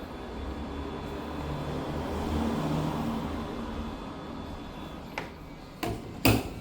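Steady blowing hum of a hot-air heat gun softening the adhesive under a cracked iPad screen, swelling and easing as it moves, then three sharp clicks near the end, the last the loudest, as a tool or the glass knocks.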